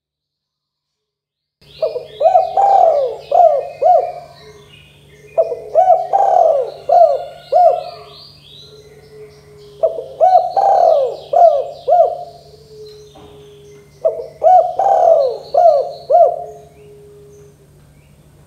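Dove cooing: four rhythmic phrases of several coos each, about four seconds apart, beginning after a short silence. Fainter, higher chirping runs behind the coos.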